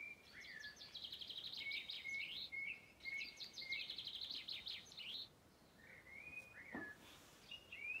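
Recorded common chaffinch song played from a soft-toy bird's small built-in speaker: two rapid trilled phrases, one just after the other.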